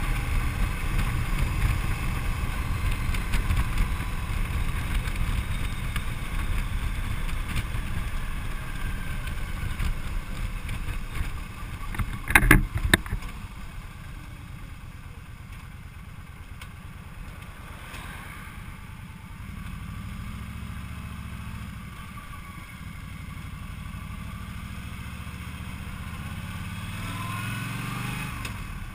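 Cruiser motorcycle riding at road speed, with wind rushing over the handlebar microphone and the engine running low beneath it. Two sharp knocks come about twelve seconds in. After that the wind noise drops and the engine's steady note comes through more clearly.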